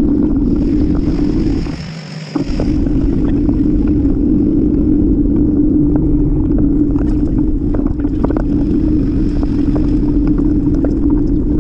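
Steady rumble of wind and road noise on a bicycle-mounted camera's microphone while riding, with a steady hum over it and scattered faint ticks from bumps; the level dips briefly about two seconds in.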